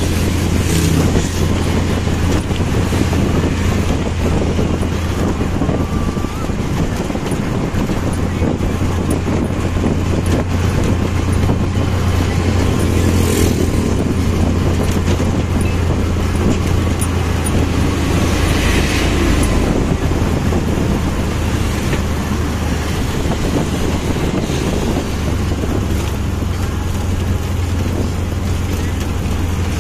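Motorcycle taxi cab's engine running steadily underway, a continuous low drone mixed with road and wind noise inside the open-sided cab.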